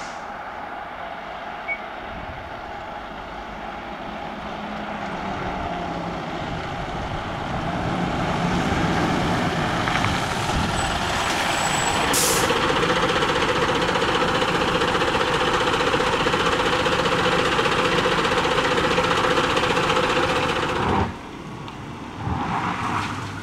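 Scania fire engine's diesel engine running as it drives up, growing louder over the first several seconds and then holding steady, with a brief sharp hiss about halfway through. The sound drops away suddenly near the end.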